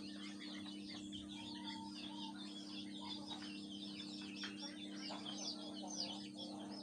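Background of a poultry house: many chicks peeping over one another, faint and continuous, over a steady low hum.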